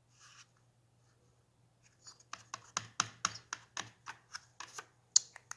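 Sharp small metallic clicks and taps from hand work on a chainsaw under reassembly, about three to four a second, fairly even, starting about two seconds in after a brief faint scrape.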